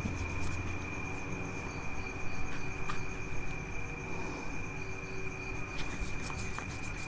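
A steady, unbroken high-pitched trill or whine over a low background hum, with a few faint clicks.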